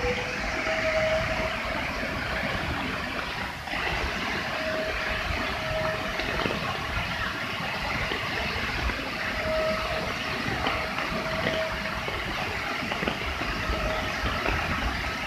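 Steady roar of a muddy flash-flood torrent plunging down a cliff as a waterfall, a dense rushing noise that never lets up. Faint short tones come and go above it.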